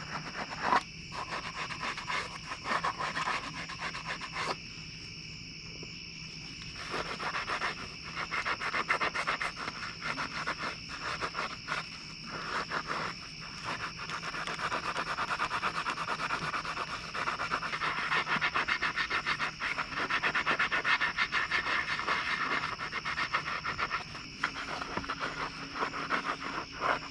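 Foaming cleaner being sprayed onto a motorcycle engine's aluminium cases and scrubbed by hand: a scratchy, rhythmic rubbing that grows denser in the second half. Steady high chirring of crickets underneath.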